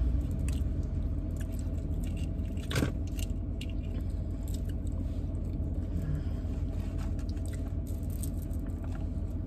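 Steady low hum inside a car cabin with the engine running, overlaid with paper wrapper crinkling and scattered small clicks as a sandwich is unwrapped; one sharper click about three seconds in.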